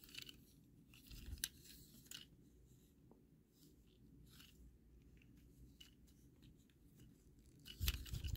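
Faint, scattered clicks and scrapes of the plastic parts of a Transformers Legacy Dead End action figure being folded and pushed into place by hand, with a louder cluster of clicks and a handling thump near the end.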